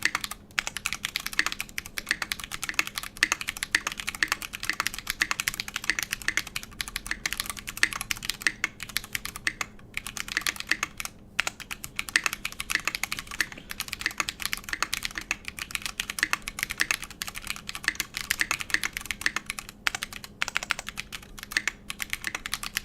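Fast continuous typing on a custom 60% mechanical keyboard with Holy Chickies switches (MX Blue housings with Halo True stems) in a brass plate, a dense stream of sharp keystroke clicks with a few brief pauses. The spacebar uses a Holy Panda switch with clipped, lubed stabilizers.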